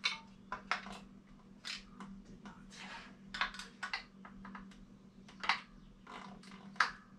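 Irregular light clicks and taps of metal hand tools being handled at a bicycle's crank arm, a couple of sharp ticks a second, over a faint steady hum.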